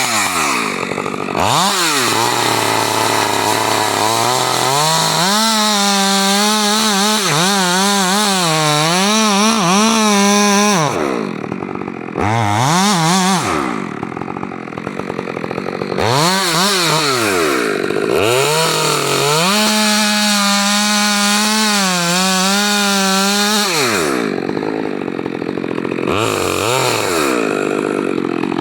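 Stihl MS 462 R two-stroke chainsaw cutting, its engine pitch dropping and holding steady under load for several seconds at a time, with quick revs rising and falling between cuts.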